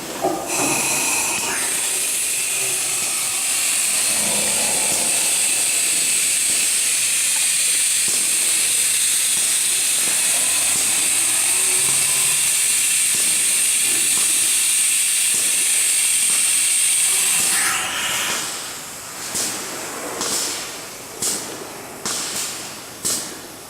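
High-speed spindle of a five-axis CNC aluminum profile machining center running with a steady high-pitched whine and hiss, which dies away about 17 seconds in. After that come short hissing bursts about once a second.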